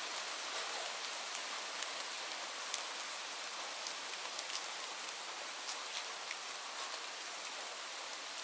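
Steady rain falling on leaves, a continuous patter with many separate drops ticking irregularly on top.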